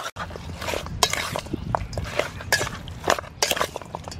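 Raw chicken wings being tossed and mixed by hand in a stainless steel bowl: a quick, irregular run of wet slaps and knocks against the metal.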